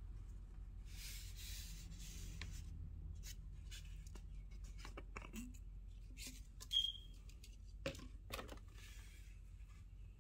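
Small handling noises: soft rustles and scattered clicks, with one short high-pitched squeak about seven seconds in, over a steady low hum.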